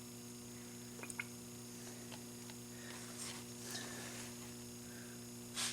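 Steady electrical mains hum, with a couple of faint clicks about a second in, soft rustling or trickling in the middle, and a short loud rustle right at the end.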